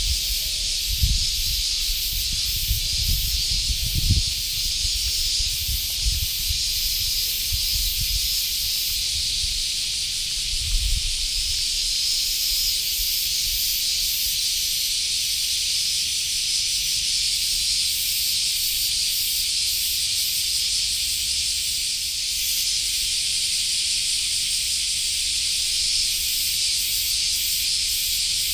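Steady, shrill insect chorus, with a faster pulsing layer at the top of the pitch range. A few low thumps come in the first eleven seconds or so.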